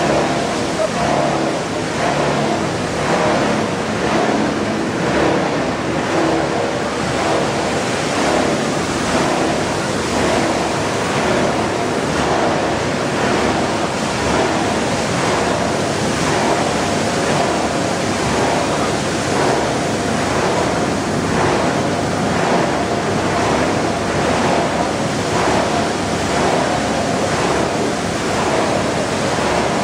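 PET bottle washing line running: water pouring and splashing as shredded plastic flakes churn through the washer, over a steady machine hum.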